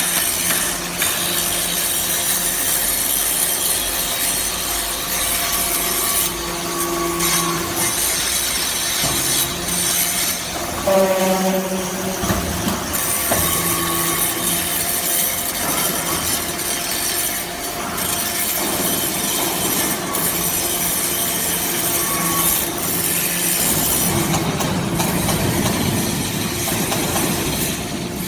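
Metal-chip briquetting line running: a steady motor hum from the hydraulic power units under a scraping, rattling noise of metal turnings on the chip conveyor, with a brief higher whine partway through.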